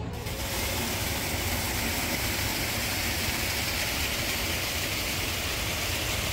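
Steady outdoor city-centre background noise: an even hiss over a low rumble that begins abruptly just after the start and then holds level.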